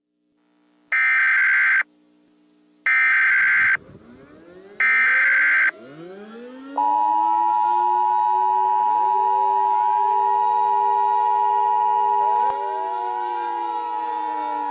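Three bursts of Emergency Alert System SAME header data tones, each a harsh digital warble about a second long. Several air-raid sirens follow, winding up in rising glides, and the EAS two-tone attention signal starts about seven seconds in and sounds steadily with them.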